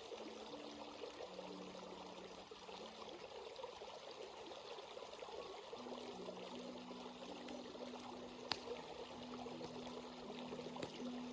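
Stream water flowing and trickling in an even rush, with a faint low hum that shifts pitch now and then and a single sharp click about eight and a half seconds in.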